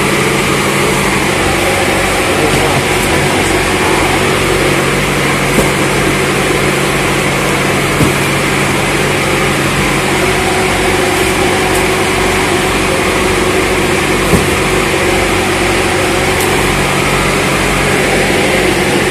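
Loud, steady drone of running machinery, with a few brief knocks as cardboard cartons are handled and stacked.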